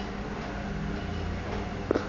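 Front-loading washing machine running with a steady low hum, with a short click near the end.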